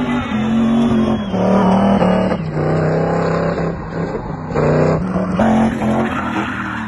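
A car engine held at high revs, its pitch dipping and surging in waves, as the car spins doughnuts on paving with its tyres smoking and squealing.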